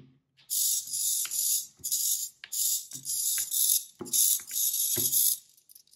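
Hobby servo motors of a 3D-printed thrust-vectoring gimbal whirring in a string of short high-pitched bursts as they tilt the motor mount back and forth under joystick control, with a few soft knocks among them.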